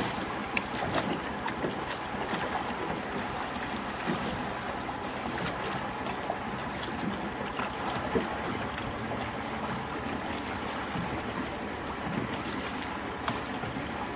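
Steady wash of wind on the microphone and water lapping around a small boat on calm water, with a few light knocks.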